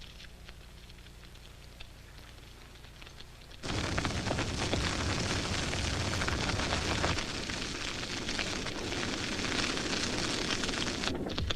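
Grass fire crackling. About four seconds in it suddenly becomes much louder: a dense rush of burning grass packed with sharp crackles and pops, which keeps going to the end.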